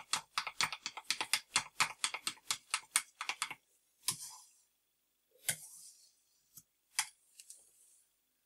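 Wooden stir stick clicking against the sides of a plastic measuring jug while stirring a runny PVA glue, glycerin and water mix, about five ticks a second; the stirring stops about three and a half seconds in. A few single knocks follow, about a second and a half apart.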